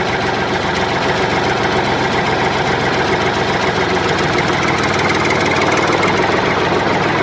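An engine running steadily with a rapid, even chug, like a tractor at low speed.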